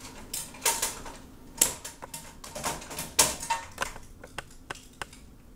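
Hand wire cutters snipping through a fluorescent ballast's lead wires: a scatter of short, sharp clicks, with a couple of louder knocks as the cutters and ballast meet the sheet-metal fixture pan.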